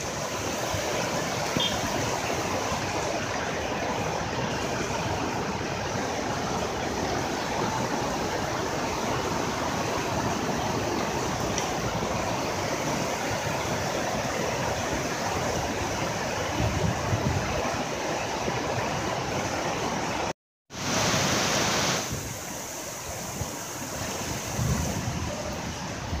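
Heavy rain and floodwater rushing down a street, a steady hiss of water. About 20 seconds in the sound cuts out for a moment, returns briefly louder, then carries on a little quieter.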